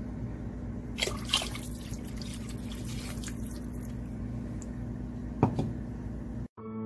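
Water dripping and splashing into a pressure cooker pot of liquid, with brief splashes about a second in and again near the end, over a steady low hum.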